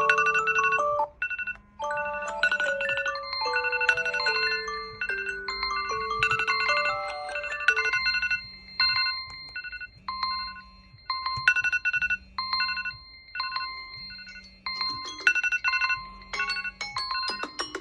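Smartphone alarm tones played back: a bright electronic melody over a bass line, changing about 8 seconds in to a sparser tone of short repeated chimes over a low note, which grows busier near the end.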